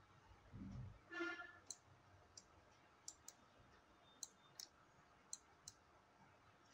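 Faint, scattered clicks of a computer mouse and keyboard, about eight of them, sharp and isolated, in a near-silent room. About a second in there is a brief pitched hum.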